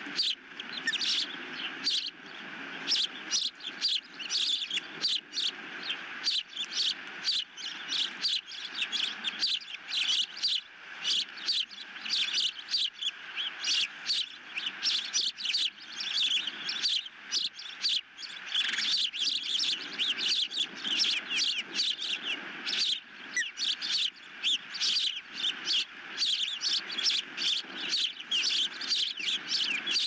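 Ospreys calling at the nest: a long, unbroken series of short, high chirps, two or three a second.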